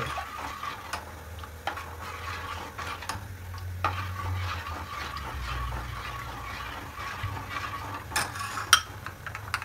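A metal spoon stirring coconut milk in a stainless steel saucepan as it heats. Soft scraping comes with small clinks against the pan, and two sharper clinks near the end, over a low steady hum. The milk is kept moving so it does not curdle.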